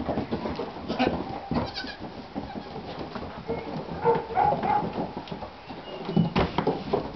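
Goats bleating, with one short high bleat about four seconds in, among scattered knocks and thumps.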